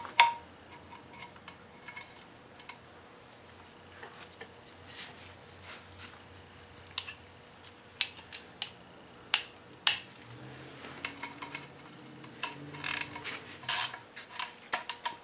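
Hand tools and loose metal parts clinking against the engine during a diesel engine teardown: scattered sharp metallic clicks and taps, coming closer together near the end.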